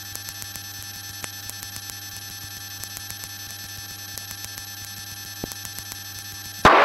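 Steady electrical hum with a fast, even ticking running through the cockpit intercom audio, and one sharper click about five and a half seconds in.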